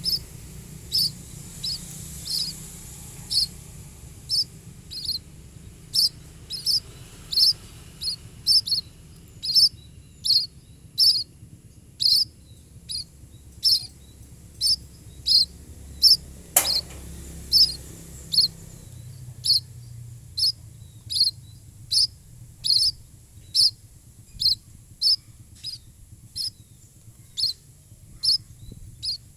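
A fallen pipit chick cheeping: short, high calls repeated about once or twice a second in a steady rhythm. There is a single sharp click about halfway through.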